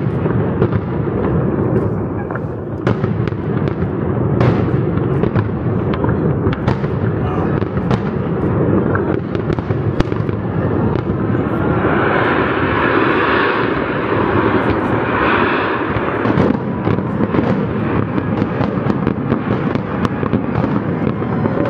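Aerial fireworks shells bursting in quick succession, a dense run of pops, booms and crackle, with a louder stretch of crackling hiss about halfway through.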